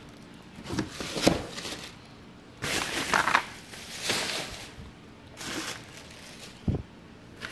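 Packaging being handled: plastic bags and cardboard boxes rustling and crinkling in irregular bursts, with a dull thump near the end.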